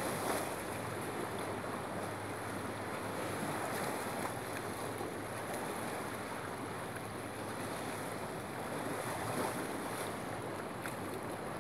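Steady wash of Lake Huron waves against the pier, with wind noise on the microphone.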